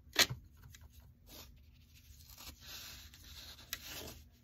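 A watercolour paintbrush brushing and dabbing on sketchbook paper, with a soft scratchy hiss in the second half. A single sharp tap about a quarter second in is the loudest sound.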